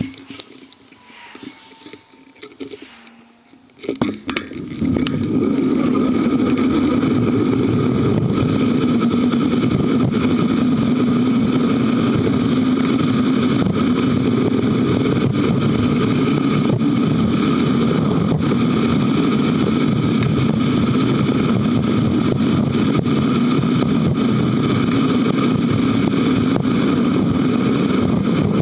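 A few knocks of a handlebar-mounted camera being handled, then from about five seconds in a loud, steady rushing drone of riding noise: wind and tyre noise picked up by the camera on a moving bicycle.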